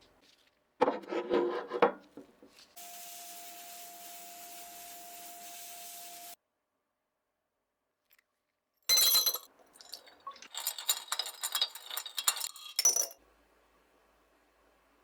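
Workshop handling sounds of metal parts. A short burst of scraping comes about a second in, then a steady hiss with a faint steady tone for about three and a half seconds. After a break, loose metal pieces clink and rub against each other for about four seconds.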